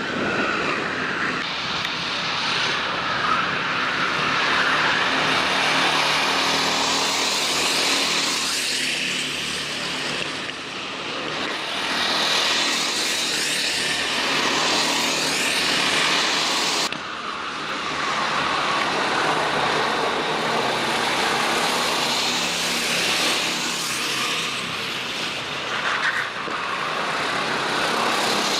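Racing kart engines running at speed, their pitch rising and falling as they accelerate and lift. The sound changes abruptly about seventeen seconds in.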